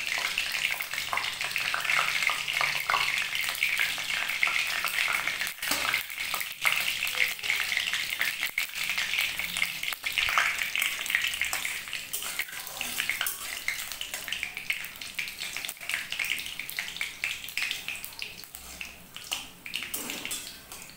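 Bay leaves and dried red chillies sizzling in hot mustard oil in a kadai: a steady frying hiss full of fine crackles. Near the end a metal spatula stirs through the oil.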